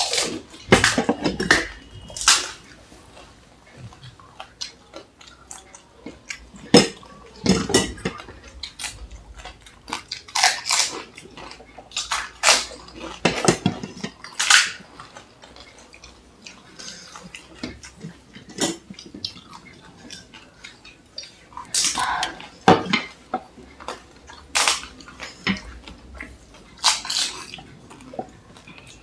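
Two people eating pani puri fast: crisp fried puris cracked and crunched, wet mouthfuls slurped and chewed, with occasional clinks of steel bowls. The sounds come in quick, irregular bursts.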